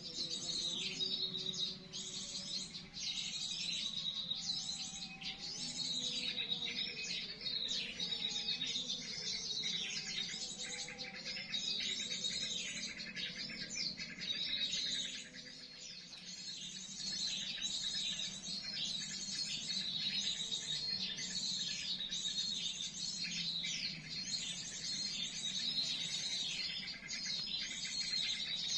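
Small birds chirping and twittering rapidly and without a break, a dense run of high-pitched repeated notes.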